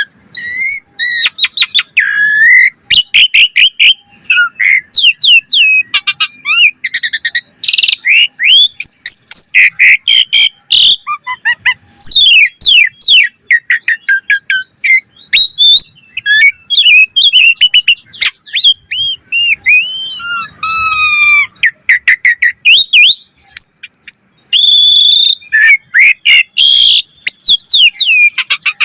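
Asian pied starling singing a fast, varied song of rising and falling whistles, quick chattering runs and clicks, with almost no pause between phrases.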